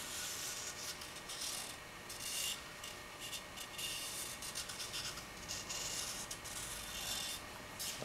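Hand rubbing and scratching on a brown paper pattern wrapped around a cylinder as it is marked out, a run of quick scratchy strokes with short pauses between them.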